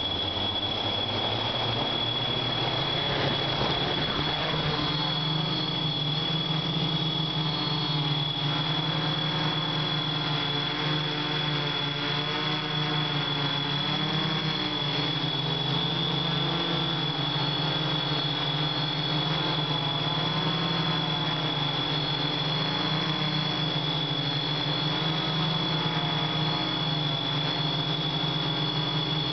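Hexacopter drone's electric motors and propellers spooling up in the first few seconds and lifting off, then a steady buzz whose pitch wavers as the throttle changes during the climb, with a constant high whine on top. Heard up close from the camera mounted on the drone.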